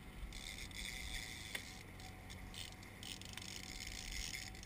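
Small outboard trolling motor running steadily at low speed, under a hiss of wind and water, with a couple of faint ticks.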